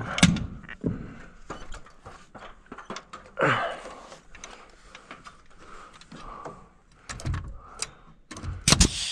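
A pneumatic framing nailer and its air hose being picked up and handled on an OSB roof deck, giving scattered knocks and clatter. Near the end comes the loudest sound: a heavy bang with a sharp air hiss, the nailer driving a nail into a dormer rafter.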